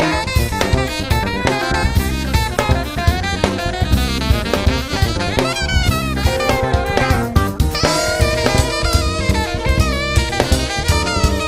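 Upbeat jazz-style background music with a steady drum-kit beat and a saxophone line.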